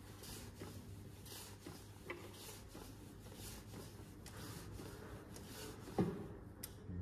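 Faint repeated rubbing strokes, roughly one or two a second, from hand work on the engine's sump area, with a single knock about six seconds in.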